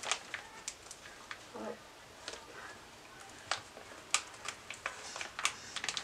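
Faint, irregular light clicks and taps of small plastic toy parts being handled while a cord is threaded through them.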